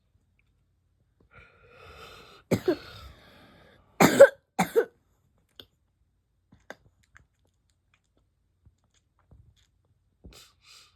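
Hiccups: a few sharp, sudden hics, two close together about two and a half seconds in and the loudest pair around four seconds in, then only faint small sounds.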